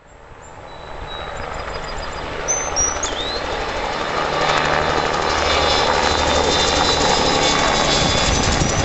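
Low-flying gypsy moth spraying helicopter approaching, its engine and rotor noise growing steadily louder over the first several seconds, then holding loud and steady.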